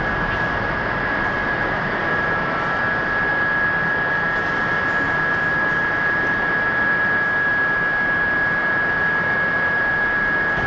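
Industrial machinery running steadily: a loud, dense noise with a constant high-pitched whine.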